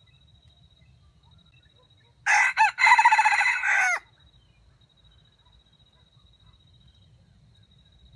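Red junglefowl rooster crowing once, about two seconds in: a short crow of under two seconds, opening with a couple of quick notes and then one drawn-out note that stops abruptly.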